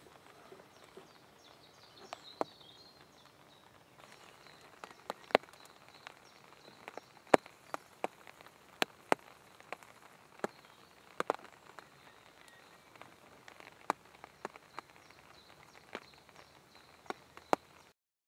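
Scattered sharp ticks at irregular intervals, some in quick pairs, with faint high-pitched chirping about a couple of seconds in.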